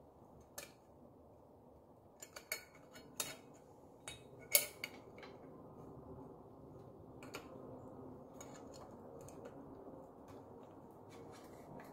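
Small metal bicycle headset parts and a tool clinking and clicking as they are handled, with a cluster of sharp clicks about two to five seconds in, then lighter taps.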